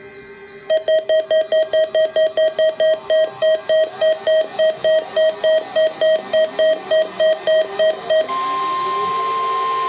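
Weather radio alert beeping rapidly, about four beeps a second, for the weekly test. About eight seconds in, the beeping stops and the steady 1050 Hz National Weather Service warning alarm tone comes in loud and holds.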